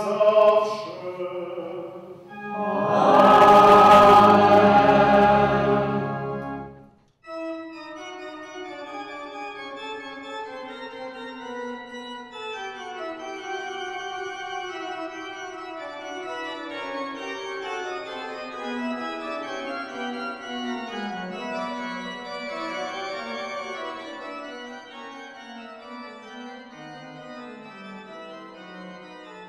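Organ music. A loud full chord starts about three seconds in, is held for about four seconds and cuts off suddenly; then softer organ plays slow, sustained chords.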